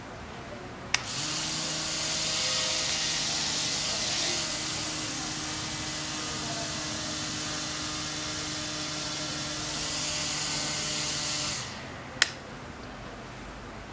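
A click about a second in, then a small DC motor spinning a plastic propeller with a steady whirring hiss and a low hum for about ten seconds before it stops, followed by another click.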